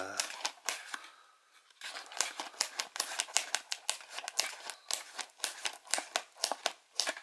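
Glossy printed card insert being flexed and handled, giving a run of irregular crackling clicks, several a second, with a short lull about a second in.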